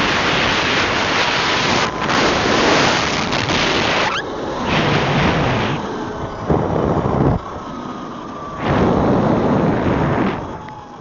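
Wind buffeting the camera microphone in loud uneven surges during a ride, with the faint whine of an electric dirt bike's motor showing through in the quieter gaps.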